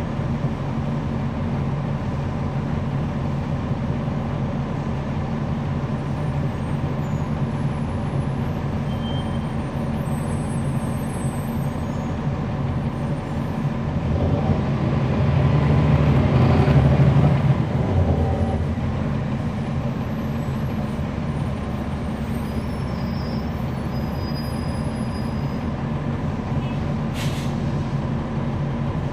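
Cabin sound on board a NABI 40-SFW transit bus, its Cummins ISL9 diesel engine running with a steady low drone. Around the middle the engine swells louder for a few seconds, then settles back, and a short sharp noise comes near the end.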